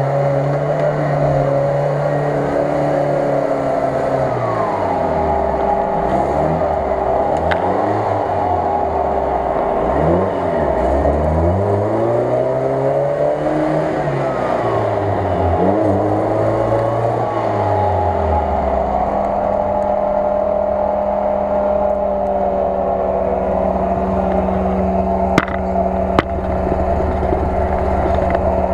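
UAZ-469 off-roader's engine revved up and down over and over while the vehicle is bogged in deep mud. About two-thirds of the way through it settles to a steady lower note. Two sharp clicks come near the end.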